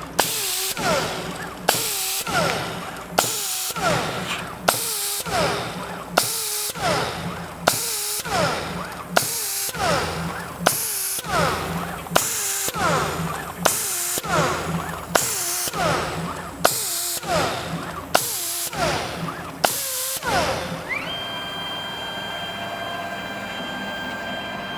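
A spinning engine-turning tool on a Torchmate CNC table is pressed again and again onto stainless steel plate to cut swirl marks, about one touch every one and a half seconds. Each touch brings a sharp burst and a falling whine from the loaded motor. About twenty seconds in the touches stop and a steady higher whine carries on.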